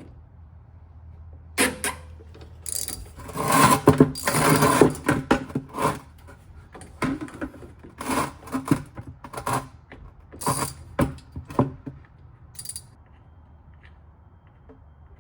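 Hand tools clicking, clinking and scraping against metal in irregular bursts while a Torx fitting on the diesel fuel filter housing is loosened. The busiest, loudest stretch comes a few seconds in, and it thins out after about twelve seconds.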